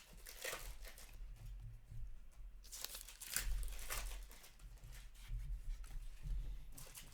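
Trading card packs and cards being handled: several short bursts of crinkling and tearing, the loudest about three seconds in.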